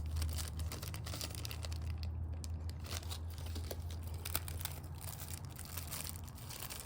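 Crinkling and rustling of packaging as small survival-kit items are handled, with scattered small clicks and a steady low hum underneath.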